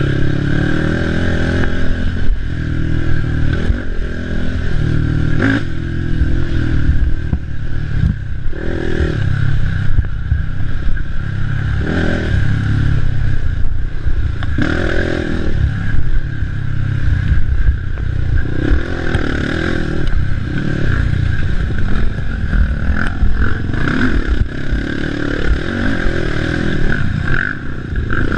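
Racing ATV engine running hard over a rough off-road course, its pitch rising and falling with the throttle, with the machine rattling and knocking over bumps.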